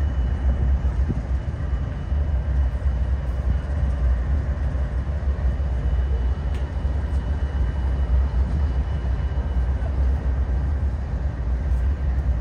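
Freight train rolling past, a steady low rumble of the cars on the rails with a faint thin tone held above it.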